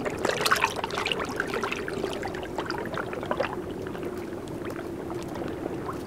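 Water trickling and lapping in a hot-spring pool, with many small drips and splashes over a low steady tone.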